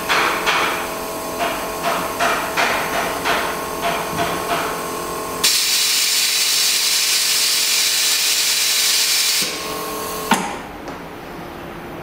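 Pulse-heat hot-press flex-cable bonding machine running its bonding cycle: a steady machine tone under a string of short hissing puffs, about three a second, then a loud steady hiss for about four seconds. A sharp click comes near the end, and the tone stops with it.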